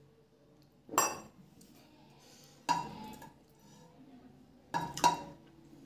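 Tableware knocking on the table: a stainless steel tumbler and a plate being set down and handled. There are three sharp clinks with a short ring, about a second in, near three seconds, and near five seconds; the last is a quick double knock.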